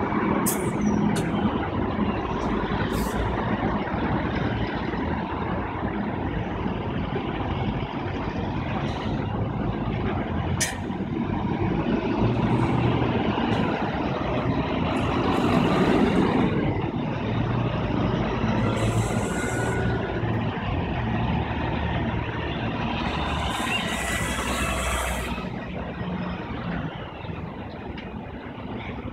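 Diesel city buses running and passing along the street, their engines humming, with several hisses of air brakes, the longest about two-thirds of the way through. The traffic sound falls away somewhat near the end.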